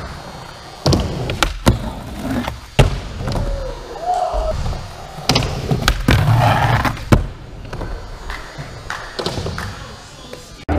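Skateboard wheels rolling on indoor skatepark ramps, with several sharp clacks and thuds as the board pops and lands.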